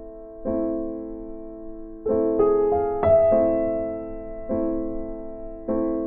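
Background music of slow electric-piano chords: about five chords, each struck and left to fade.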